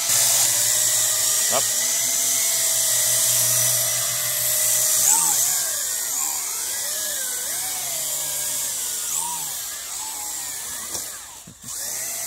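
WLtoys V666 quadcopter's motors and propellers whining in flight, the pitch sliding up and down as the throttle changes. The sound dips briefly near the end, then picks up again.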